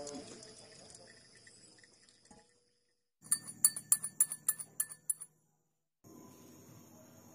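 Metal spoon stirring black coffee in a small glass tumbler, clinking sharply against the glass about a dozen times over two seconds.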